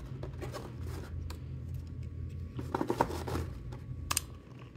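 Metal lightsaber hilt being handled and set down into its plastic display case on a fabric lining: scattered light clicks, knocks and rustles, busiest about three seconds in, with a sharp click just after four seconds. A steady low hum sits underneath.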